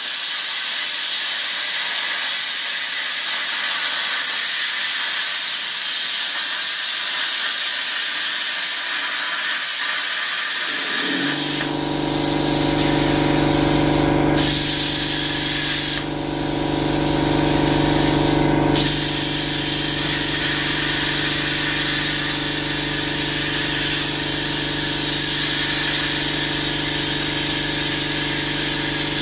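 Plasma torch on a Langmuir Systems Crossfire CNC table cutting steel plate: a steady hiss of the arc and air jet that eases off twice, briefly, between about twelve and nineteen seconds in. About eleven seconds in, a steady low machine hum joins and runs on under it.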